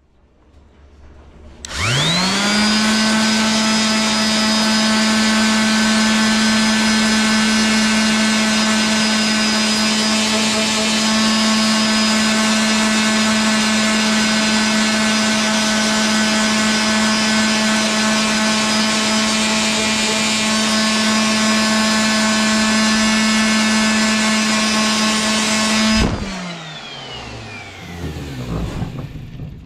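Electric random orbital sander switched on about two seconds in, spinning up to a steady high hum while sanding the burn marks from around a burned-in stamp on a hickory axe handle. Near the end it is switched off and its pitch falls as it winds down.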